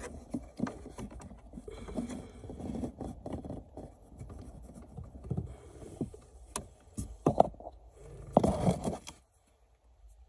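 Light scraping and scattered small clicks as multimeter test probes are handled and touched against the fuses in a car fuse box. There are a couple of louder rustles late on, then the sound cuts off to silence near the end.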